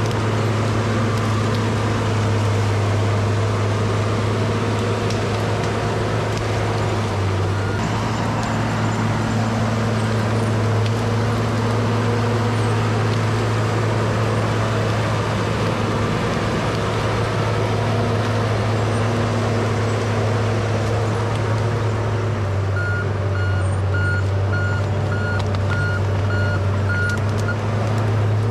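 Case 850K crawler bulldozer's diesel engine running steadily under load. Near the end its reversing alarm beeps about twice a second for some five seconds as the dozer backs up.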